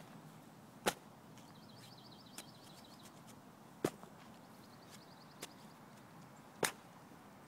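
Shovel blade chopping into soil and turf: three sharp strikes about three seconds apart, with two lighter knocks between.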